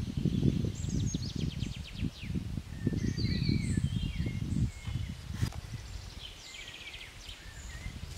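Forest birds singing, with rapid trills and short warbling phrases, over a gusty low rumble of wind on the microphone that dies down about five seconds in. A single sharp click comes shortly after.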